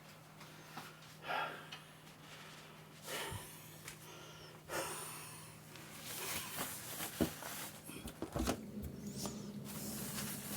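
Scattered faint rustles and clicks, then from about six seconds in a steadier rubbing noise of a cloth or paper towel wiping spilled soup off the floor.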